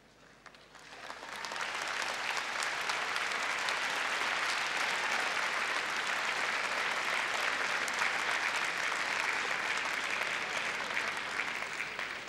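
Large indoor audience applauding, the clapping swelling up in the first couple of seconds and holding steady before starting to fade near the end.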